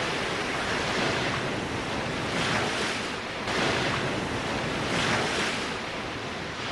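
Rushing, wind-like whoosh of a TV title sequence, swelling and easing a few times and beginning to fade near the end.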